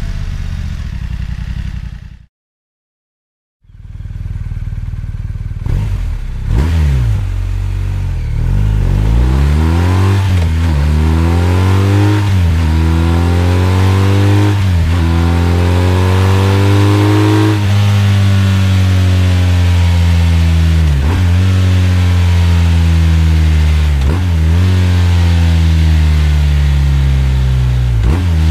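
BMW R 1250 R's boxer twin on its standard silencer, idling and revved repeatedly, its pitch climbing and dropping every couple of seconds. It is preceded by a different twin-cylinder engine, the F 900 R's, idling steadily and cutting off about two seconds in, then a second of silence.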